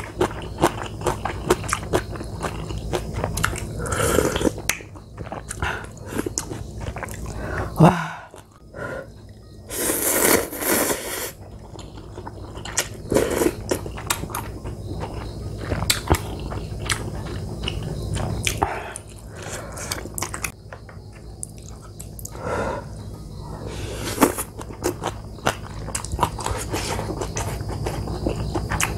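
Close-up eating sounds of crab ramen: chewing, slurping noodles and broth from a spoon, and many small wet clicks and smacks of the mouth, with a longer, louder slurp about ten seconds in.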